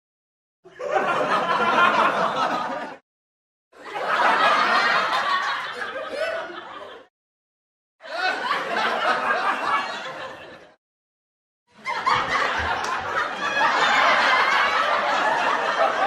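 Four laughter sound effects played one after another, each lasting about two and a half to five seconds, with a short dead silence between them.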